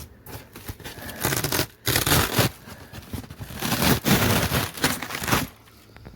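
Insulation foam being broken and torn by hand, crackling and tearing in several irregular bursts.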